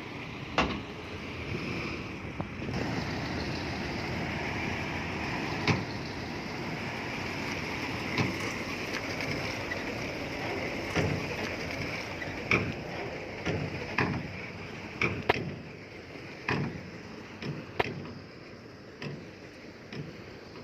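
Heavy earthmoving machinery running steadily, with sharp metallic clanks and knocks at irregular intervals that come more often in the second half.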